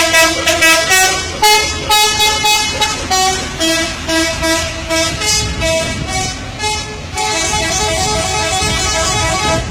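Intercity bus 'telolet' musical air horn playing a quick tune of short toots on several notes. For the last two and a half seconds it holds one steady chord. A low engine rumble runs underneath.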